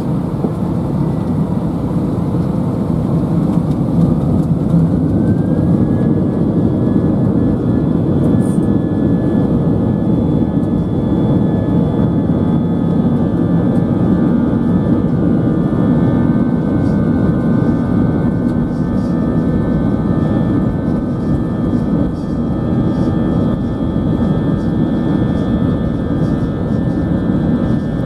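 Airliner's jet engines heard from inside the cabin, spooling up to takeoff thrust at the start of the takeoff roll. A whine rises in pitch about three to six seconds in and then holds steady over a constant heavy rumble.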